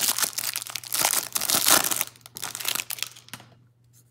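Clear plastic wrapper crinkling and tearing as it is peeled by hand off a stack of trading cards; the crinkling stops near the end.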